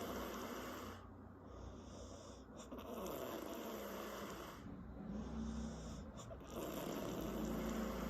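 A woman snoring, her loose lips flapping with the airflow, in slow breaths about every three seconds, with a few short lip pops between them.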